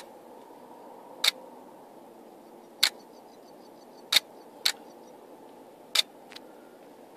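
Camera clicking as a lightning trigger fires it at the lightning flashes: about six sharp single clicks at uneven intervals, over a low steady hum.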